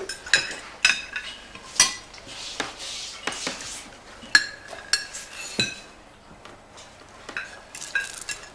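Cutlery clinking against plates and dishes during a meal: a dozen or so irregular sharp clinks with a short ring, the loudest about halfway through, with a brief lull after it.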